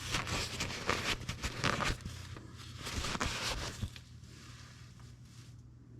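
Rustling, rubbing and scraping handling noises: a quick run of scuffs for about four seconds, then dying away to a faint steady hum.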